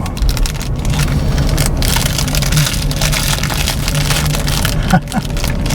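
Road noise heard from inside a car: tires crackling and crunching over a rough road surface, with a steady low hum underneath.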